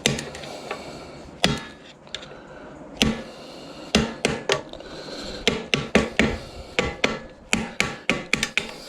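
Small pliers clicking and tapping against a metal door hinge while a circlip is pried off: irregular sharp clicks, a few at first, then coming quickly in the second half.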